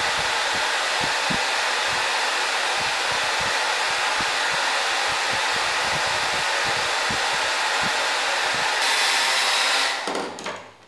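Handheld electric hair dryer blowing steadily as it dries a dog's coat, with irregular low thumps under the rush of air. About ten seconds in it is switched off and the sound dies away.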